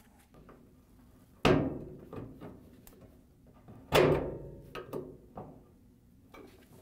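Flathead screwdriver prying at the E-clip on a dryer's rear drum roller shaft: two sharp metallic clacks about two and a half seconds apart, each ringing out briefly, with small clicks and scrapes between.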